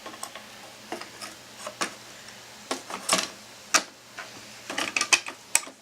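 Irregular clicks and knocks of computer hardware being handled and fitted into a PC case, with a quick run of sharp clicks near the end.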